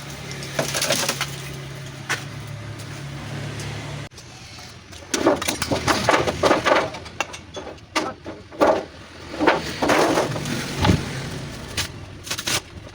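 A steady low hum for about four seconds, cut off suddenly, then a run of irregular scraping and crunching strokes from hand work on refrigerator scrap, as the copper part is cleaned of what is stuck to it.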